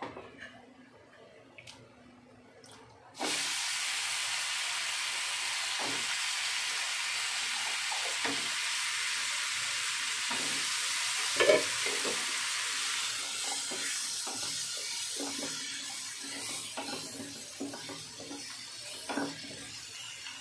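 Raw potato cubes hit hot oil and masala in a non-stick kadai, and a loud sizzle starts suddenly about three seconds in, holds steady, then gradually fades after about ten seconds. A wooden spatula knocks and scrapes against the pan as the contents are stirred.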